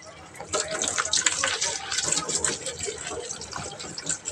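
Water running from a tap and splashing irregularly while a crusted washing-machine filter is rinsed, getting louder about half a second in.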